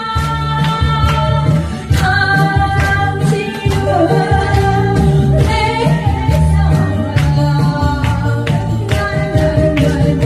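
Korean trot song sung over a backing track with a steady beat.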